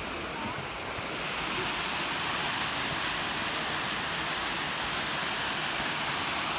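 Small waterfalls in a rocky gorge pouring into pools: a steady rushing of water that grows louder about a second in and then holds.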